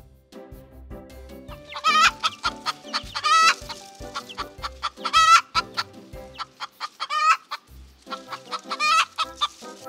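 Chickens clucking, with a hen's drawn-out wavering calls about every one to two seconds over a run of short low clucks.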